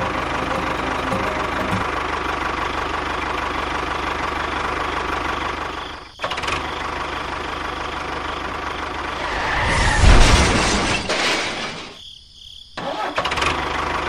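A small engine running steadily. It cuts off abruptly about six seconds in, comes back, swells louder for a second or two, then drops out briefly before running again.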